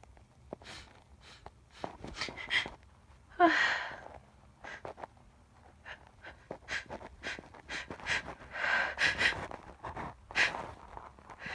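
A woman's quick, catching breaths, sniffs and gasps as a sneeze builds, with one loud voiced gasp about three and a half seconds in and a run of faster breaths near the end.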